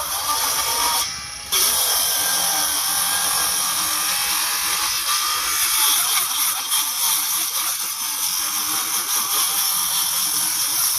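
Cordless circular saw cutting into a tree stump, running steadily under load. It drops out briefly about a second in, then runs on and stops near the end.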